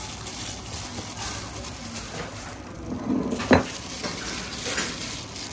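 Food sizzling over a steady hiss, with light clinks of kitchen utensils and one sharp knock about three and a half seconds in.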